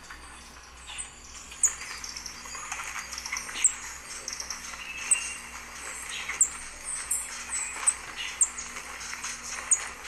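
Recorded calls of a green thorntail hummingbird: a series of short, very high, thin notes that drop sharply in pitch, repeated roughly once a second.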